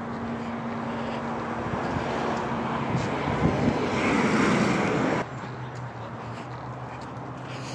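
Garbage truck engine running on a city street; its noise builds over a few seconds, then drops off sharply about five seconds in, leaving a lower steady hum.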